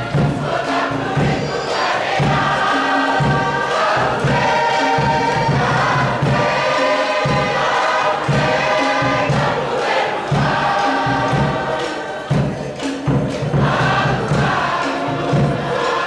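A group of voices singing together in harmony over a steady, regular beat.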